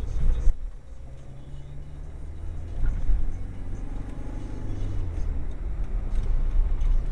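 Car engine and road rumble heard from inside the car. About half a second in the engine drops back and goes quieter, then its note rises in pitch and the noise builds again as the car picks up speed.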